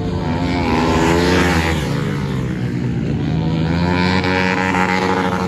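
Flat-track racing motorcycles at full throttle. The engine tones rise and fall twice as bikes pass, loudest about a second in and again around four to five seconds in.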